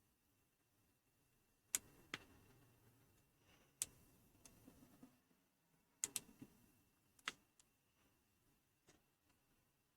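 Small sharp clicks from the push buttons of a Pinecil portable soldering iron being pressed, singly and in quick pairs, a second or two apart.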